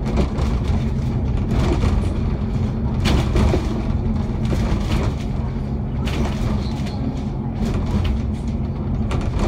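Alexander Dennis Enviro500 MMC double-decker bus running at cruising speed, heard inside the cabin: a steady engine drone with road noise, and occasional short rattles and knocks.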